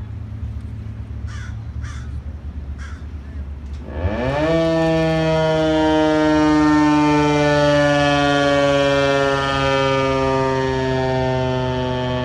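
A T128 outdoor warning siren run for a growl test, a brief low-speed run instead of a full wail. About four seconds in it spins up, its pitch rising quickly, then holds a loud, steady, low growl with many overtones that sags slightly in pitch. Before it starts, a few short calls sound over a low background rumble.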